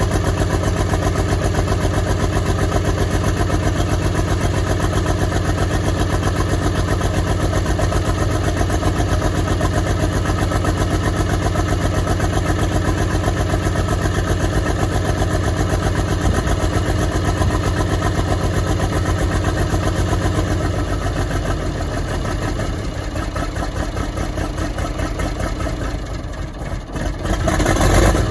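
Track Marshall 90 crawler's diesel engine running unevenly with a misfire; its cracked block makes it a scrap engine. It runs steadily for a long stretch, drops back about twenty seconds in, nearly stalls near the end, then picks up loudly again.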